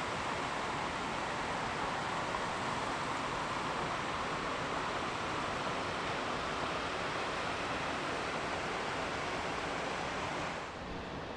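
Steady rushing noise of wind and water around a motorboat's bow, dropping a little about ten and a half seconds in.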